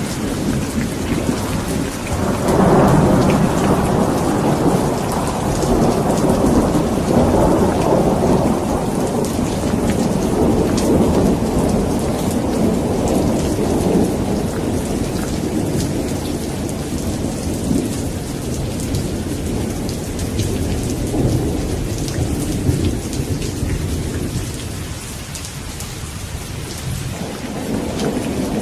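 Steady rain falling, with a long rolling thunder rumble that swells about three seconds in and slowly dies away over some twenty seconds; another rumble begins building near the end.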